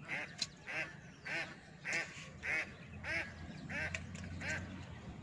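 A duck quacking over and over in a steady rhythm, about nine calls, one every half second or so.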